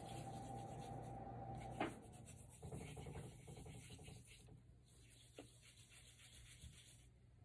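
Faint rubbing of fingers and palms against each other, with one short click about two seconds in.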